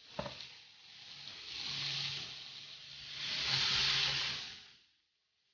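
Chopped potatoes sizzling in hot oil in a frying pan, the hiss swelling twice as they are stirred and then dying away.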